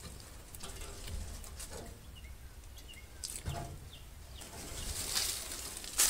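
Quiet outdoor ambience with a few faint bird chirps in the middle, and rustling and light knocks of someone moving about that grow louder over the last second or two.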